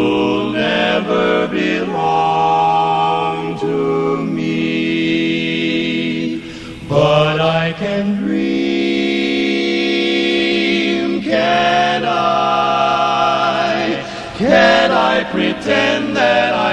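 Male barbershop quartet singing a cappella in four-part close harmony, holding long sustained chords that shift with short sliding changes every few seconds.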